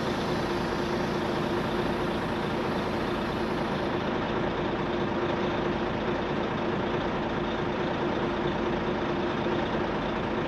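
Truck engine idling steadily, a low even hum with a constant tone over it.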